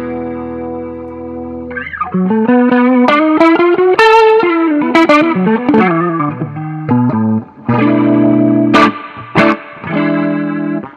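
Electric guitar played through an Eventide H9's rotary-speaker (Leslie) effect. A held chord rings out, then comes a run of single notes with a wavering warble, then sustained chords near the end.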